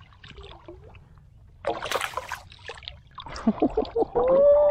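Water splashing and sloshing as a hooked redfish thrashes beside a paddleboard while held by hand, with a burst of splashing about two seconds in and a few sharp splashes just after three seconds. Near the end, a man's drawn-out excited shout is the loudest sound.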